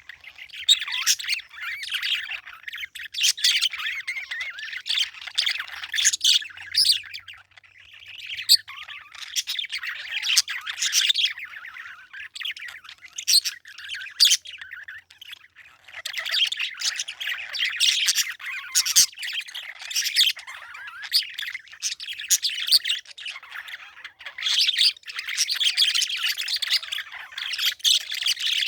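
Parakeets chirping and chattering continuously, with frequent short, sharp squawks and a few brief lulls.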